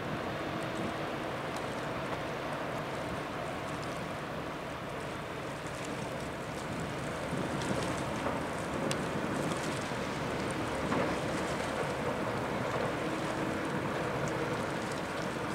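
Steady drone of a harbour tug's and a container ship's engines underway, over wind buffeting the microphone. It grows a little louder about halfway through.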